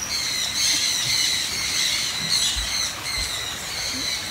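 A crowd of birds calling at once, a dense chorus of overlapping high-pitched squawks and chirps.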